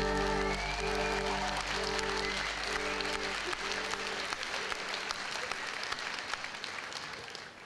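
The last held chords of a ballad fade out as audience applause takes over and slowly dies away.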